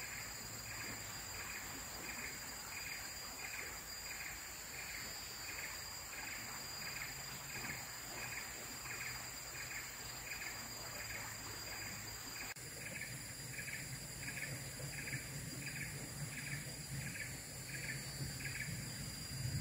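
Insects calling: a steady high-pitched drone with a rhythmic pulsing call repeating about one and a half times a second, over a faint low hum.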